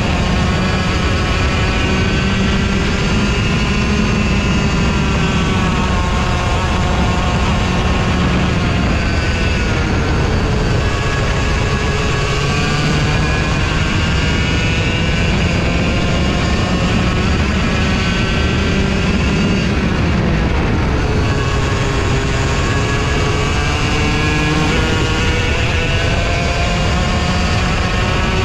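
Go-kart engine at racing speed, heard from on board: its pitch falls as it slows for corners and climbs again as it accelerates out, several times, over a steady low rumble.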